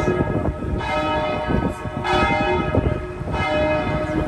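Church tower bell tolling, struck about once every second and a quarter, each stroke ringing on into the next.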